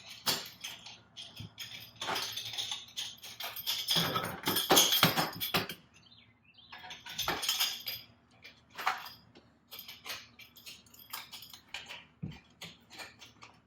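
Metal tools and engine parts clinking, rattling and knocking in quick, irregular bursts, busiest a few seconds in, as a part is worked loose and refitted.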